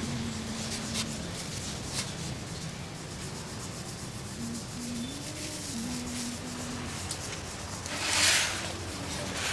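Rubbing from hand work on a car's disc brake caliper and brake hose, with light clicks about one and two seconds in and a louder rushing rub lasting about half a second near the end.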